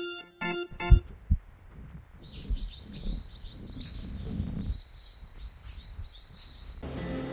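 Small birds chirping and twittering, with two sharp low thumps about a second in. Keyboard music ends in the first second and new music starts near the end.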